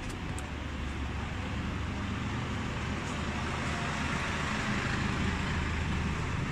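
Steady outdoor background noise: a low rumble with a hiss over it that swells slightly about four to five seconds in.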